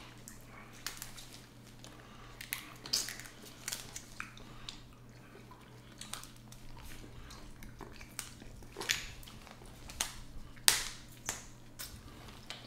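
Crab leg shells being cracked and snapped open by hand for eating, with chewing between: about a dozen sharp, irregular cracks, the loudest near the end.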